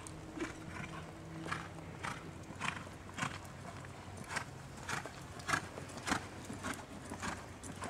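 Hoofbeats of a ridden horse on sand arena footing, a regular beat a little under twice a second.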